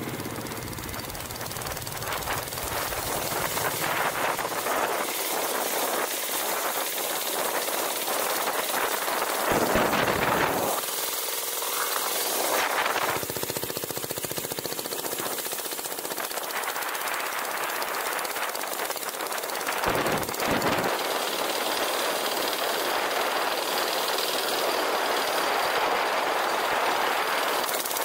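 A 199cc Jintian 165F single-cylinder air-cooled diesel engine on a mini bike, running under load while the bike is ridden, with a fast, even run of firing knocks. Low wind rumble on the microphone swells twice, about a third and two-thirds of the way through.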